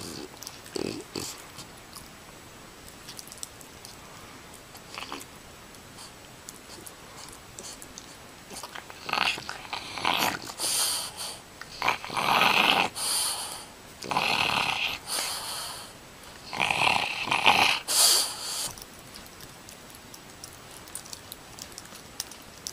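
Bulldog puppy making a string of loud, noisy, breathy vocal sounds, about half a dozen of roughly a second each, through the middle of the stretch while a cat plays on top of it. It is quieter before and after, with only a few faint rustles and clicks.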